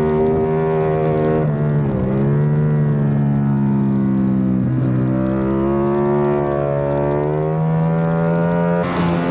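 Yamaha YZF-R7's parallel-twin engine at racing speed, heard from on board the bike. Its pitch climbs, drops sharply about two seconds in and again about five seconds in, climbs again, then dips briefly near the end.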